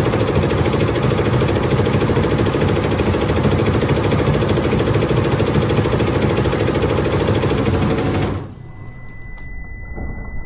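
Multi-head computer embroidery machine stitching at speed: a steady, dense mechanical clatter of the needle heads. It cuts off abruptly about eight seconds in, giving way to a much quieter, duller sound with a faint steady high tone.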